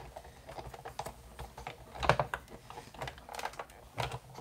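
Plastic cutting plates and a metal die clicking and knocking as the plate sandwich is handled and fed into a Sizzix Big Shot die-cutting machine. The loudest knock comes about two seconds in, with a few lighter clicks later as the crank handle is taken.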